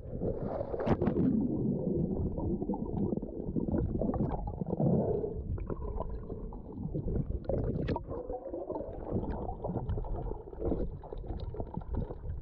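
Muffled water sloshing and gurgling, a dull low rumble with scattered faint clicks.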